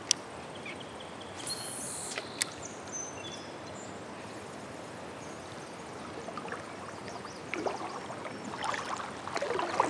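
Steady hiss of a shallow river flowing around a wading angler's legs, with water sloshing and splashing picking up over the last couple of seconds as he moves.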